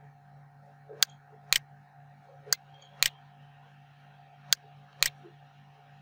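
Computer mouse clicking: three pairs of sharp clicks, the clicks in each pair about half a second apart, over a steady low electrical hum.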